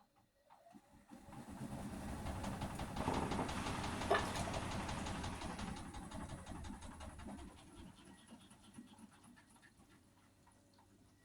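Hotpoint Aquarius washing machine's motor turning the drum: a rumble with fast rattling that builds over about two seconds, peaks with a brief squeak, then slowly winds down.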